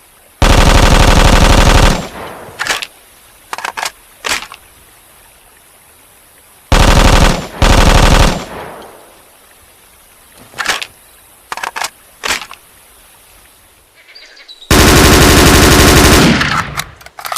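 M16 assault rifle sound effect: three long bursts of rapid automatic fire, each about a second and a half, with a fading echo after each and scattered single sharp cracks in between.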